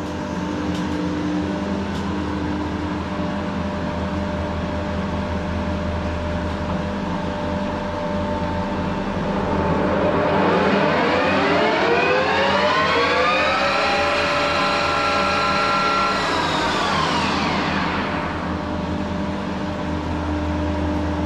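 Harrison M500 metal lathe running with a steady motor and gear hum. About ten seconds in, a whine from the headstock climbs over a few seconds as the spindle comes up to its top speed of 1600 RPM, holds, then falls away near the end.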